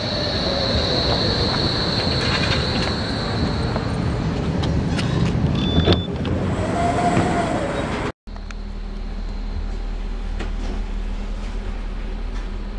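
Flexity Berlin tram pulling into a stop, a high wheel squeal fading out over the first few seconds, then two short beeps as it stands at the doors. After a cut about eight seconds in, a steady low hum from inside the moving tram.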